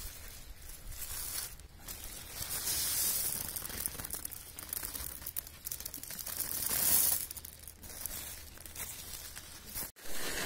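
Woven plastic feed sack rustling and crinkling as it is handled and pulled open, with dry shelled corn kernels shifting as a handful is scooped out. The rustling swells and fades unevenly and cuts out briefly near the end.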